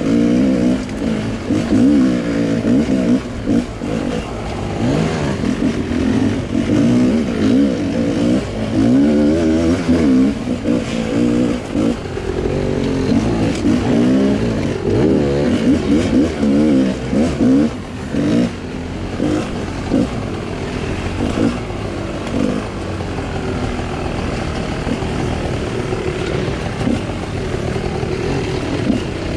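2018 GasGas 250XC two-stroke dirt bike engine revving up and down again and again as the throttle is opened and closed. It runs at a steadier pitch for the last several seconds.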